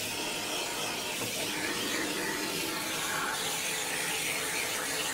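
Rinse water spraying steadily onto a dog's front leg and paws, a steady hiss as the shampoo is washed out of the coat.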